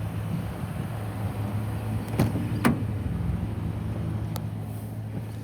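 Car door handle and latch clicking twice as the rear door is opened, with another click later, over a steady low hum.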